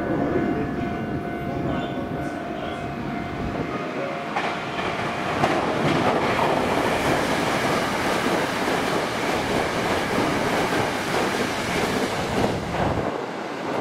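Hankyu Kobe Line limited express electric train passing at speed. The rumble of wheels on rail swells about four seconds in, stays loud, and the low rumble drops away near the end.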